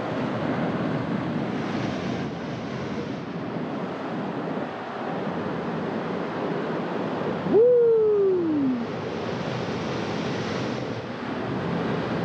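Ocean surf washing and breaking over lava rocks at the shoreline, a steady rush of water with some wind on the microphone. A little past halfway, a short loud tone rises and then slides down over about a second.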